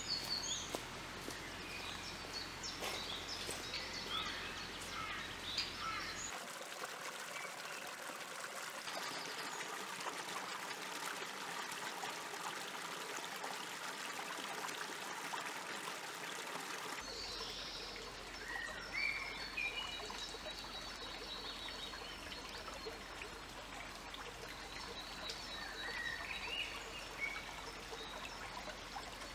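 Small stony forest stream trickling steadily over rocks, with birds chirping on and off above it.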